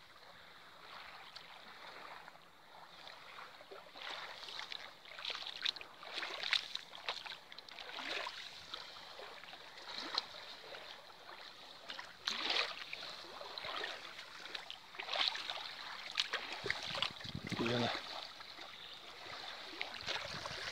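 River water lapping and splashing at the pebbly shore among branches, in small irregular splashes over a steady wash.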